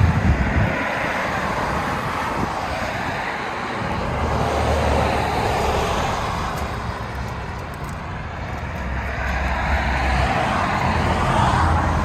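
Outdoor road traffic noise, a steady hum and rush that swells and fades as vehicles pass.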